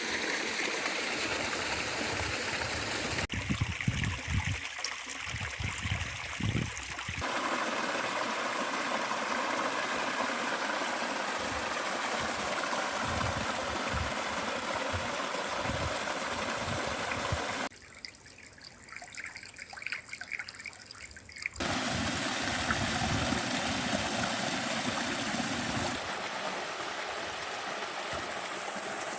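Stream water running and trickling as a steady rush, its sound changing abruptly a few times. Low rumbling bumps come in between about three and seven seconds in, and a quieter, thinner stretch follows later.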